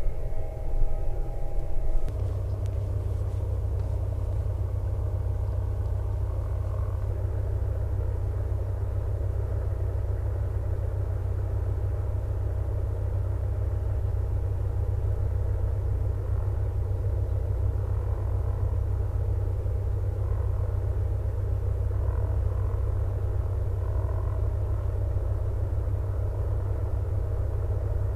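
Airliner jet engines: for the first two seconds a Boeing 737-800 on its landing roll, with a high engine whine over the rumble. Then an Airbus A321 taxiing on low power gives a steady, even low rumble with a faint steady whine.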